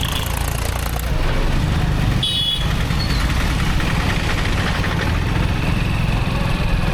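Motorcycle running steadily on the move, with a low rumble of wind on the microphone. A short high-pitched tone sounds a little over two seconds in.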